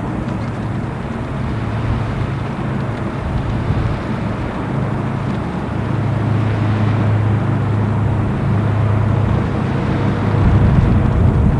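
Low, steady drone of the departing cruise ship AMBITION's machinery, under an even hiss of heavy rain, growing a little louder about ten seconds in.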